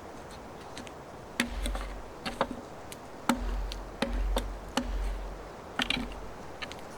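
A series of sharp wooden knocks and cracks, roughly one a second from about a second and a half in, several with a dull low thump beneath them: wood being struck or handled.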